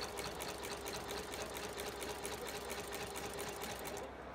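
Foxsew shoe repair sewing machine running and stitching: a fast, even clatter of about seven to eight stitches a second over a steady hum, stopping just before the end.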